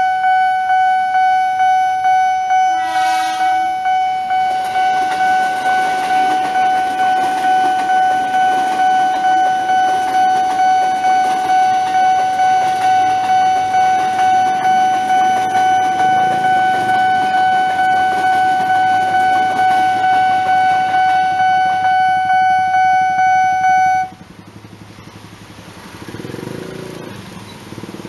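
Railway level-crossing alarm sounding a steady high electronic tone that pulses about twice a second, while a KRL electric commuter train runs past with rumbling wheel and rail noise; a horn sounds once briefly about three seconds in. The alarm cuts off suddenly near the end, and motorcycle engines start to pull away.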